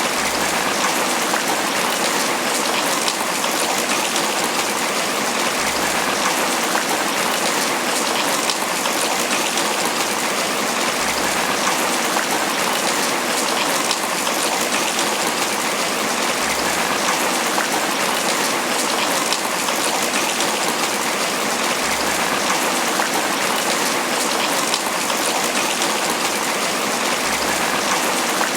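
Tropical rain falling steadily on banana leaves, a dense, even patter of drops with no letup.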